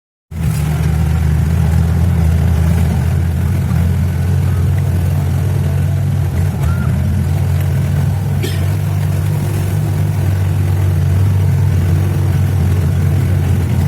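A vehicle running steadily on the road, a loud, even low engine drone with road noise, with a faint click about eight and a half seconds in.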